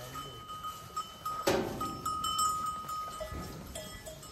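Cattle eating hay at a metal feed trough: hay rustling, with one loud rustling burst about one and a half seconds in, over a steady high ringing tone that keeps breaking off and coming back.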